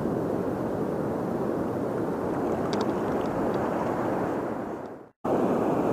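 Steady outdoor rushing noise at the river's edge, fading out about five seconds in and then cut off abruptly.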